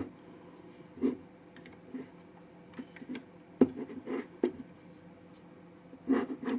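Light plastic clicks and handling noise from a transforming robot figure's parts being turned and pushed into place, scattered and irregular, with one sharper click about three and a half seconds in.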